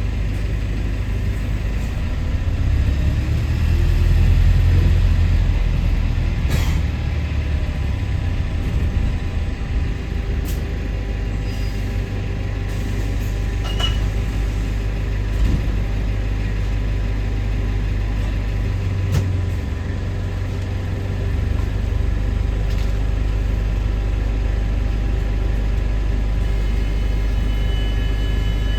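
A bus's engine running, heard from on board the moving bus: a steady low drone that swells a few seconds in, with a few sharp clicks and rattles from the bodywork.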